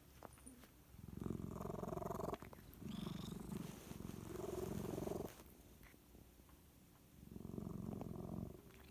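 A sleeping domestic cat making a purring, snore-like noise in stretches of one to two seconds with short pauses between; the owner is unsure whether it is snoring or sleep-talking.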